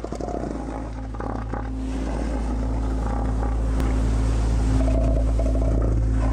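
Bull elephant seal bellowing: a deep, engine-like call made of rapid pulses, growing louder.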